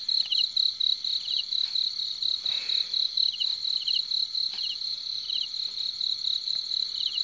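Insects chirping steadily: a high, pulsed chirp about four times a second, with a second insect's short triple chirp about once a second.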